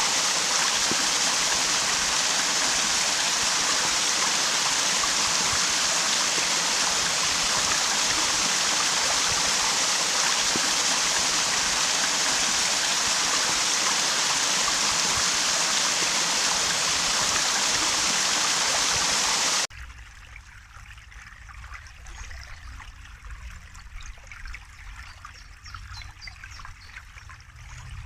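Stream water rushing steadily, a dense even hiss. About two-thirds of the way through it cuts off abruptly to a much quieter, thinner running-water sound with a low rumble underneath.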